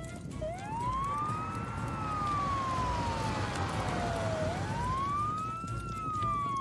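Fire engine siren wailing: the pitch sweeps up quickly, then falls slowly, twice over.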